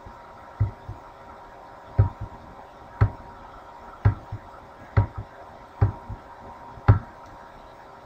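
Computer mouse clicking, about once a second, some clicks coming in quick pairs, over a faint steady hum.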